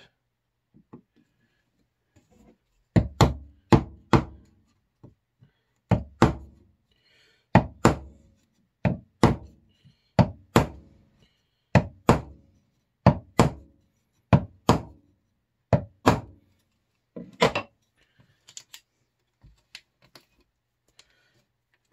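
A mallet striking a chisel, sharp knocks mostly in quick pairs about every second and a half, chopping out the rounded corners of a routed square recess in plywood to square them off. The knocks start about three seconds in and give way to a few faint taps near the end.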